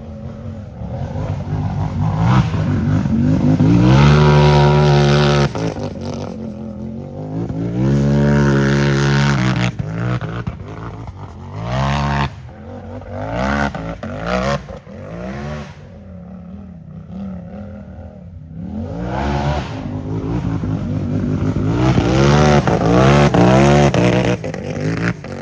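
Unlimited-class race UTV engine revving hard in repeated bursts, its pitch climbing and dropping as the throttle is worked, with the loudest pulls about four, eight and twenty-two seconds in. A few sharp knocks and clatter are heard between the pulls.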